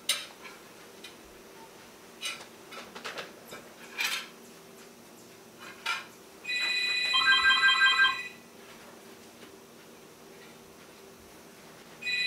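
Plates and cutlery clinking as dishes are gathered from a dinner table, then a telephone ringing with an electronic trilling ring: one ring of about a second and a half, and a second ring starting near the end.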